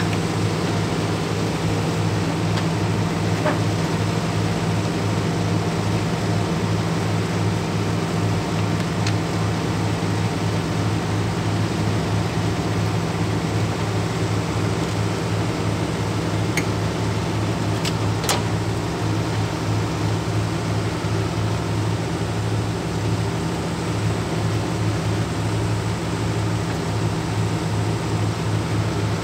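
Cat 312C excavator's diesel engine running steadily under load as the machine tracks up onto a flatbed truck trailer. A couple of sharp clicks a little past halfway.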